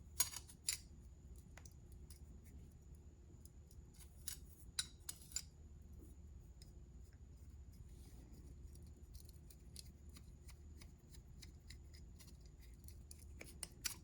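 Small metal tools being handled, giving light metallic clicks and clinks. There are two sharper clicks right at the start, a cluster around four to five seconds in and a couple more near the end.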